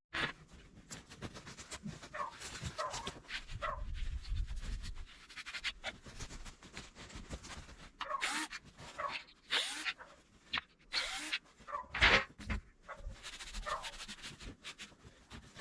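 An animal close to the microphone making short, irregular sounds with brief whines.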